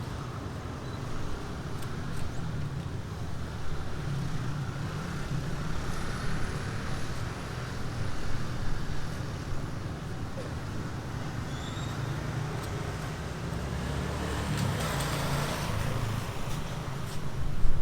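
Steady low rumble of road traffic, swelling louder about fifteen seconds in.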